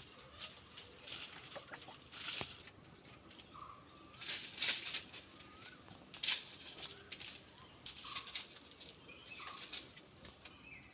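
Irregular short rustling or scratching bursts, loudest about four and six seconds in, with a few short faint chirp-like calls between them.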